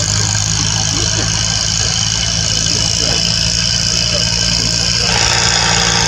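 An engine running steadily at idle: a low, even hum with a constant high hiss over it.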